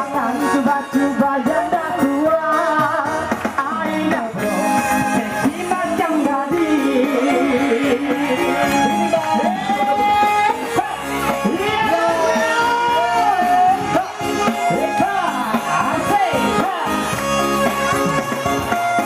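Live band music with singing, the melody sliding and bending in ornamented runs.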